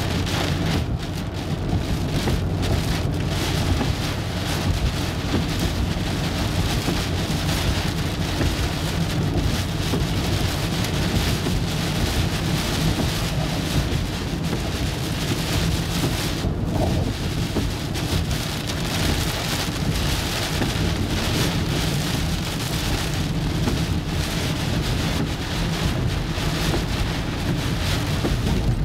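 Rain hitting the windshield and roof of a moving car over steady tyre and road rumble, heard from inside the cabin.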